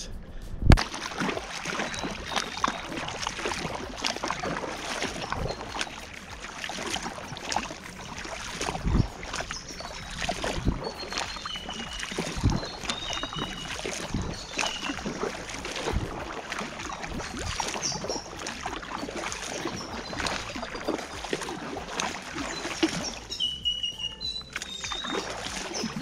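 Homemade bamboo raft being paddled through calm water: splashing paddle strokes, with the paddle now and then knocking against the raft, every second or two.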